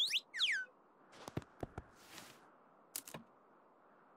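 Cartoon sound effects: two quick whistle-like pitch glides at the very start, then a few light taps and clicks and a soft whoosh, over a faint steady background hiss.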